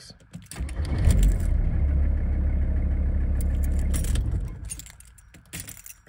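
A VW T4's diesel engine cranks over on the starter motor for about three and a half seconds without starting, then winds down. The new ignition switch is now engaging the starter with a normal key turn. Keys jangle on the key ring as the key is turned.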